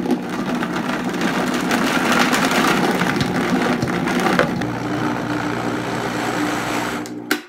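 Vitamix blender running on a jar of chopped dates, its motor humming steadily under a dense grinding, crushing churn. The sticky load is hard on the Vitamix. It stops suddenly near the end.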